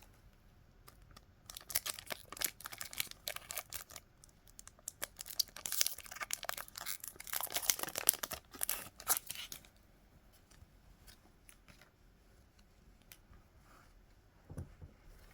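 Foil Pokémon card booster pack wrapper crinkling and tearing as it is opened, with many quick crackly rustles, then only faint handling for the last five seconds or so.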